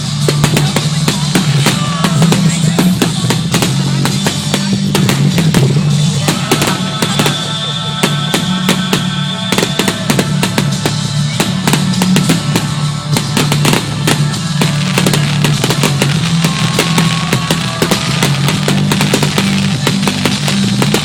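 Fireworks going off in a dense, continuous barrage of sharp bangs and crackles, with music playing underneath.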